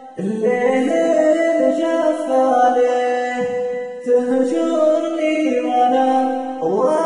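Singing voice processed with the Voloco auto-tune harmonizer and added echo: held, pitch-corrected notes, with a rising glide just after the start and another near the end.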